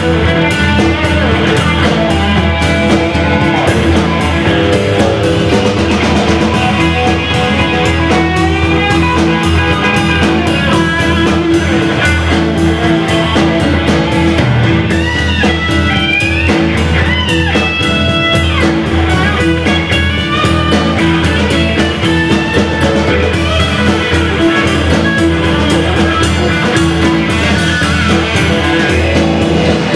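Live rock-blues band playing an instrumental passage: a lead electric guitar on a Telecaster-style guitar over bass guitar, drum kit and keyboard. The guitar line has bent notes about halfway through.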